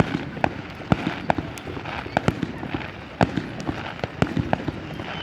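Fireworks going off: a rapid, irregular series of sharp bangs and cracks, a dozen or more, over a steady crackling hiss.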